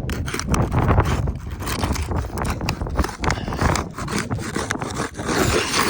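Asphalt roof shingles being pried and worked loose by hand: scraping and rubbing with scattered clicks and knocks as the shingle and its fasteners are pulled up.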